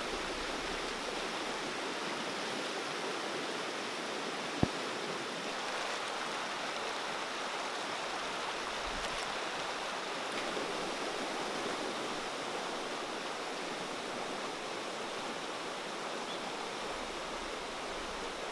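Fast, shallow river rushing over rocks in rapids, a steady water noise, with one short knock about four and a half seconds in.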